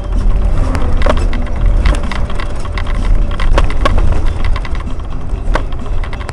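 Inside a moving bus: a steady low engine and road rumble, broken by irregular clattering, a handful of sharp knocks and rattles from loose fittings in the cab.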